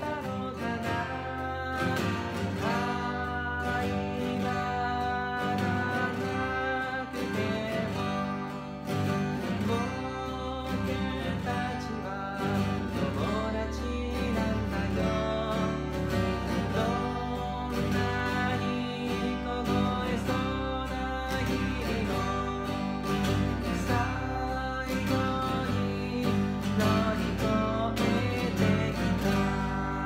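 A man singing to his own strummed acoustic guitar.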